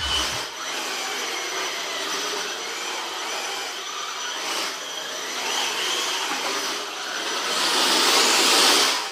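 Electric Hot Bodies Cyclone WCE RC drift car driving on carpet: its motor and gears whine with the throttle, swelling and easing, and loudest near the end.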